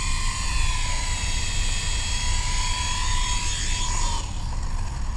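MJX F45 RC helicopter's stock electric motor and rotor whining steadily. The whine sags in pitch and stops about four seconds in as the helicopter sets down.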